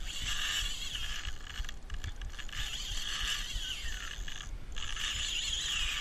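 Heavy spinning reel being cranked, its gears whirring in three spells with short pauses between, as line is wound in against a hooked kingfish.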